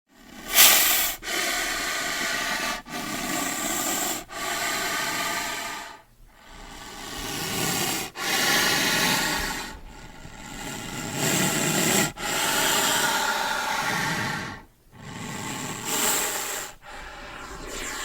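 A snake hissing: a run of about ten long hisses, each a second or two long, with short breaks between.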